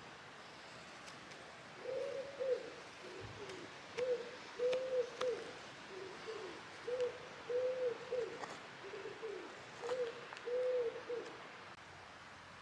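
A pigeon cooing: a run of low, rounded coos, some louder and some fainter, starting about two seconds in and stopping a little before the end. A few faint clicks of a knife cutting wood sound underneath.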